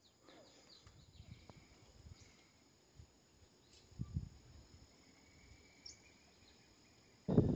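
Quiet countryside ambience at a pond: faint, steady high-pitched insect and bird calls over near stillness, with a few soft low thumps about four seconds in.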